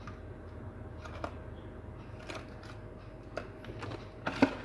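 Scattered light clicks and taps as wooden frog fishing lures are handled, over a low steady hum.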